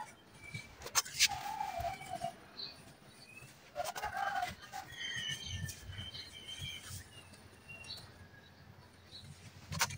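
Chunks of red dirt clicking and knocking as they are broken apart and separated by hand. Sharp cracks come about a second in, around four seconds and near the end. Birds chirp between them.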